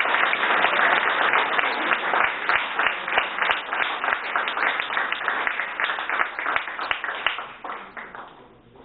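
Applause from an audience and the panel: many people clapping together, thinning out and dying away near the end.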